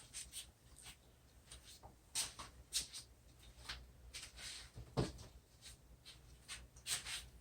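Hands handling objects: scattered soft rustles and light knocks, with a sharper click about five seconds in.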